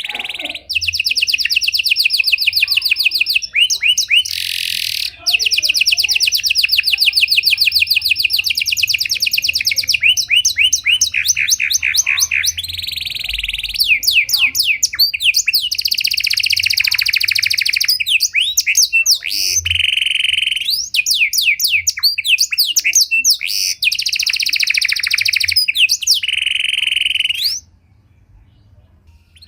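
Pied (panda) domestic canary singing a long, loud song of rapid trills and rolling phrases that change every few seconds, breaking off briefly near the end.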